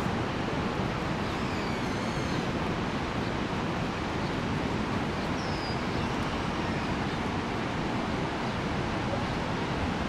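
Niagara Falls' heavy flow of water plunging over the brink: a loud, steady, unbroken rush of falling water.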